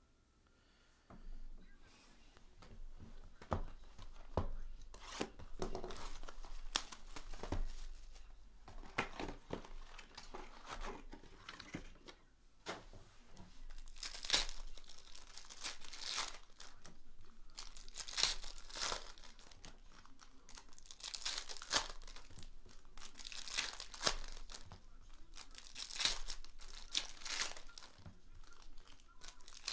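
Foil trading-card packs, 2018-19 Panini Prizm retail, being torn open by hand. The wrappers crinkle throughout, with sharp rips every couple of seconds in the second half.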